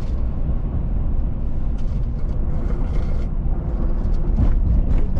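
Steady low rumble of a car's engine and tyres on the road while driving, heard from inside the cabin.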